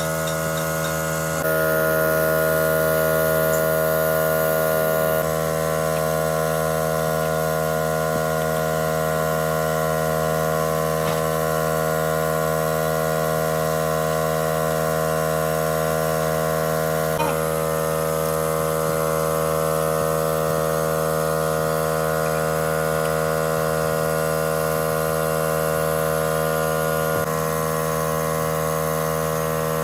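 Steady machine hum of fixed pitch with a rich set of overtones, a little louder for a few seconds near the start and otherwise unchanging.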